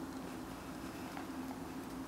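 Basset hound puppy chewing a dried cow ear, a couple of faint crunching clicks, over a steady low hum.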